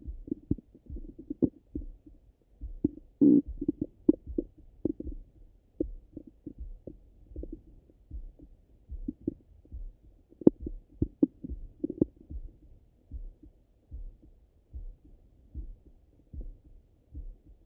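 Stomach and bowel sounds heard through a stethoscope pressed on the belly after a meal: irregular gurgles and bubbling pops, in clusters near the start and again about ten seconds in. Under them is a steady low thud of the pulse, a little more than once a second.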